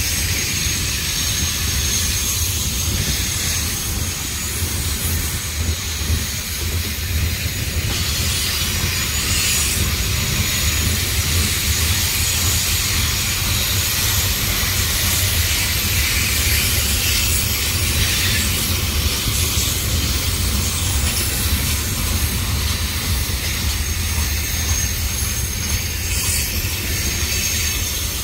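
Freight cars rolling past at close range: a steady low rumble of wheels on rail under a continuous high hiss, with a thin, steady high-pitched squeal from the wheels on the curve.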